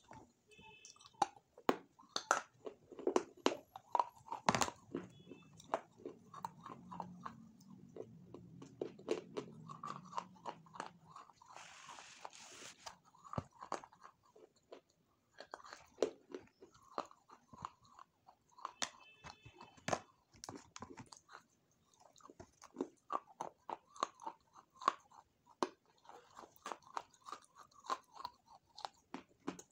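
A person chewing and crunching food right at the microphone, with many irregular crisp crackles and wet mouth sounds.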